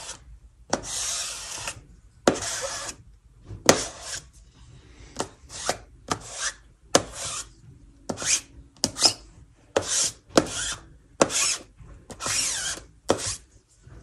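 Repeated scraping strokes of thick ink being dragged across the mesh of a screen-printing screen, a few longer pulls near the start, then shorter, quicker ones at about one or two a second.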